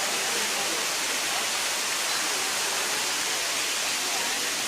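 Steady rushing noise of falling or flowing water, an even hiss with no breaks.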